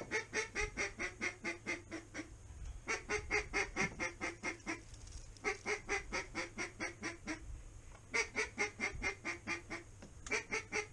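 Mallard duck call blown in a hen quacking sequence: runs of about ten quick quacks, about five a second, each run falling in pitch, repeated every two and a half seconds or so to turn an approaching mallard.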